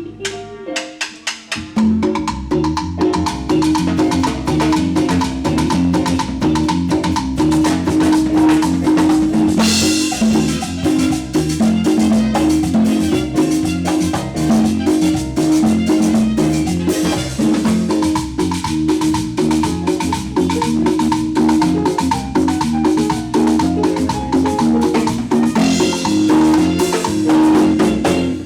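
Live cumbia band playing an up-tempo instrumental passage with drums, percussion and keyboard, with no singing yet. A few scattered hits open it, and the full band comes in about two seconds in.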